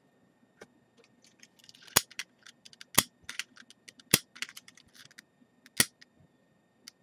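Butane torch lighter's piezo igniter clicking: four sharp, loud clicks about a second apart, with fainter clicks and short hisses between them.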